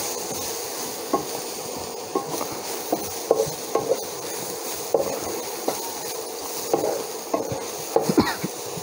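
Wooden spatula stirring and scraping a sprouted green gram and spice mixture around a nonstick frying pan, with irregular scrapes and knocks several times a second over a steady sizzle.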